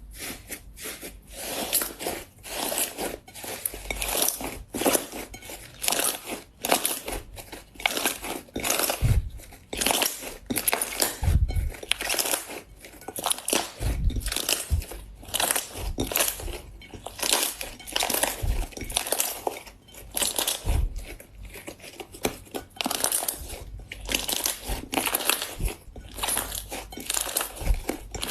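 Slime being squeezed and worked by hand, giving a dense, continuous run of crackling, popping clicks, with an occasional deeper thump.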